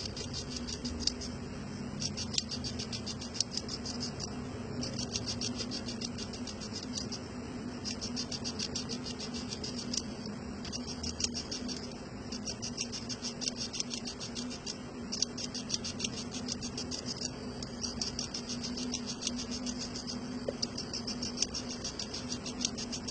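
Rapid high-pitched ticking from an insect, in runs of one to two seconds broken by short pauses, over a steady low hum.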